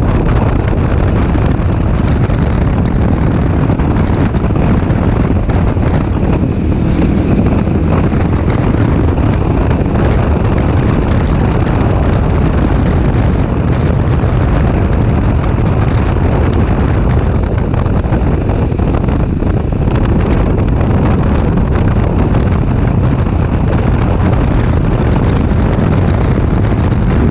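Wind rushing over the microphone of a camera on a moving Kawasaki Versys 650, with the bike's parallel-twin engine running underneath at a steady road speed. The sound is loud and even throughout.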